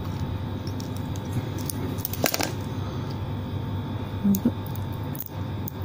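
Small clicks and a brief crackle about two seconds in, from a blade and fingers working the battery and its wire loose from a wireless earbud's circuit board, over a steady background hum.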